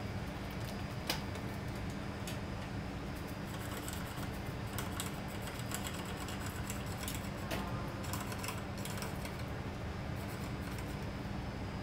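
Scattered light clicks and taps of hand work around a Mitsubishi Canter double-cab truck's cab, including the rear door being opened, with a sharper click about a second in, over a steady low workshop hum.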